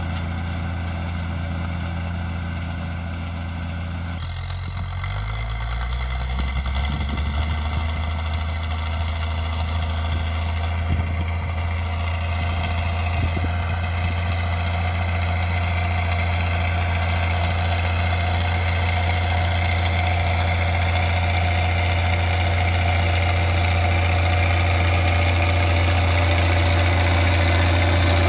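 Ursus 1634 tractor's diesel engine running steadily while pulling a disc harrow through stubble, growing louder as the tractor comes closer.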